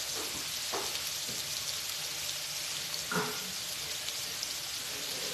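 Steaks and salmon fillets sizzling in melted butter on a stovetop griddle: a steady crackling hiss. A brief, slightly louder sound comes about three seconds in.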